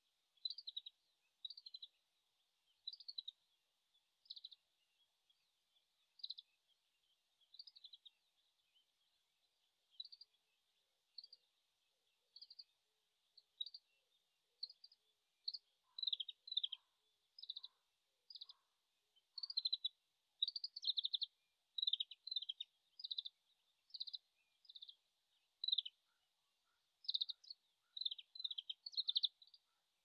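Oriental greenfinch singing faintly from a distance: short high chirps, spaced about a second apart at first, then coming faster in tight clusters through the second half. The song is halting, which the recordist takes for a bird still practising its spring song.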